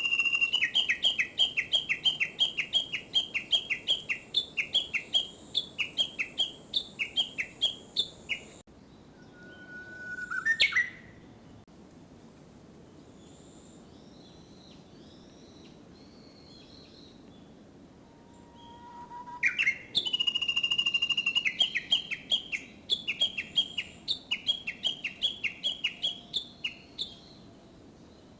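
Japanese bush warbler (uguisu) singing: two long runs of rapid repeated notes, about four a second and each lasting some eight seconds, each opened by a held high whistle. These are the bird's valley-crossing 'kekyo-kekyo' call. Between the runs it gives one short whistle ending in a sharp upward sweep, and faint chirps are heard in the pause.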